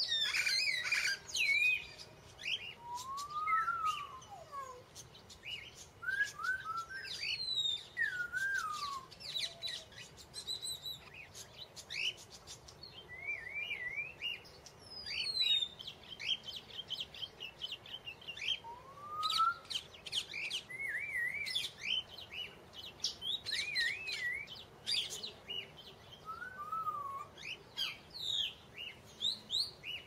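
Songbirds chirping and singing: short whistled phrases that glide up and down in pitch, mixed with sharp chips, coming in irregular bursts.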